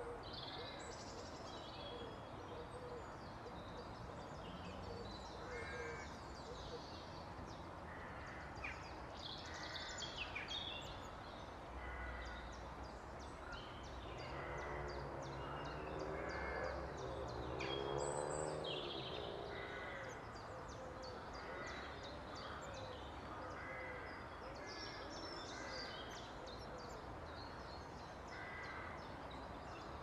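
Outdoor ambience with scattered short bird chirps and calls, and a longer, wavering lower-pitched call about halfway through.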